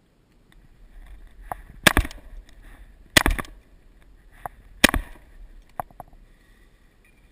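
Shotgun fired three times in quick succession, the shots about a second and a half apart, each with a short echo. Fainter sharp cracks fall between and after the shots.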